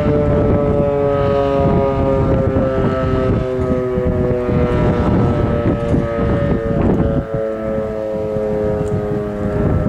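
Model 5 electromechanical outdoor warning siren sounding its steady alert tone: two loud notes held together, sagging slightly in pitch, with wind buffeting the microphone.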